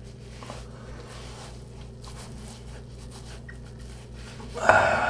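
Faint rustle of a hot, wet cotton washcloth pressed and rubbed against the face, over a low steady hum. Near the end, a short, much louder rush of noise.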